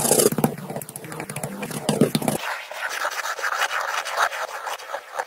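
Coloured pencil scratching on paper in quick shading strokes. About two seconds in, this changes abruptly to a fine-tip pen scratching across paper as it draws lines.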